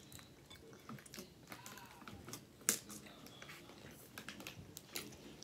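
Close-up chewing mouth sounds: scattered small wet clicks and smacks, with one sharper click about two and a half seconds in.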